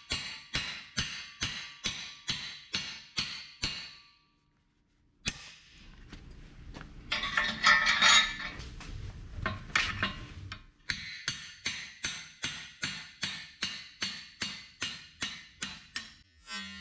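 Hand hammer striking a steel punch to drive a seized, cut-off bolt nub out of a leaf spring's bushing on an anvil: sharp ringing metal-on-metal blows, about two to three a second. A brief break about four seconds in, then a louder, busier stretch of strikes in the middle before the steady blows resume.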